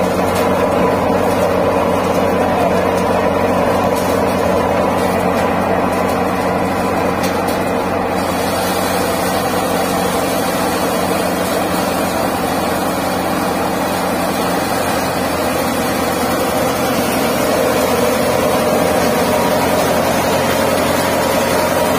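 Tractor-driven Santosh soybean thresher (haler) running at full speed while threshing soybean plants: a steady machine hum. A brighter hiss joins in about eight seconds in.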